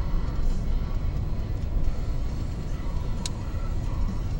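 Road and wind noise of a moving car, a steady low rumble, with a brief click about three seconds in.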